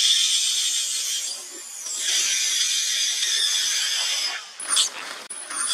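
Young long-tailed macaque screaming in distress: a harsh, high scream held for about four seconds, then two short screeches that drop steeply in pitch near the end.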